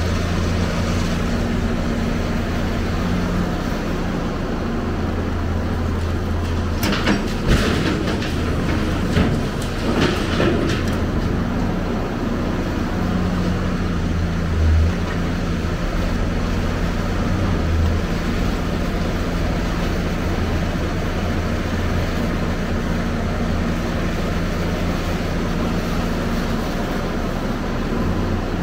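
Hyundai 290LC-9 crawler excavator's diesel engine running steadily under load as it digs and swings rubble, with a spell of crashing and clattering brick debris about seven to eleven seconds in.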